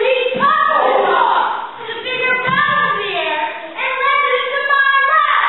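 Several young voices of a stage cast singing together, with some speech mixed in.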